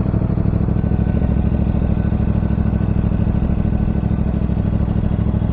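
CFMoto 450 CL-C motorcycle's parallel-twin engine idling steadily through its stock exhaust, with an even, pulsing beat.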